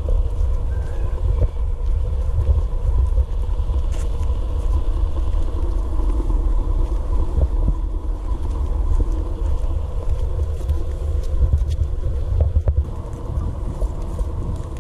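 Wind buffeting a handheld camera's microphone: a heavy, uneven low rumble, with a few faint clicks from the camera being handled.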